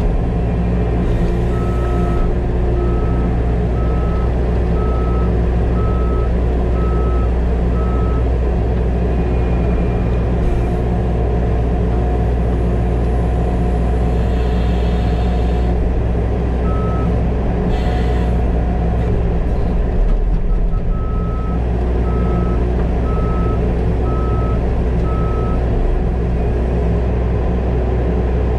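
New Holland 328 loader's diesel engine running steadily under work, heard from inside the cab. Its backup alarm beeps about once a second in two runs, early on for several seconds and again past the middle, as the machine reverses.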